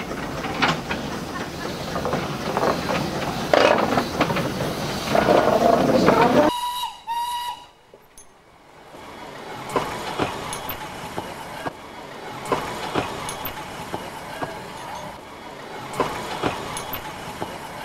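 Small saddle-tank steam locomotive of the Darjeeling Himalayan Railway hissing steam loudly with clanks and knocks, then giving two short toots on its whistle about six and a half seconds in. Afterwards the hiss drops away and only scattered knocks remain.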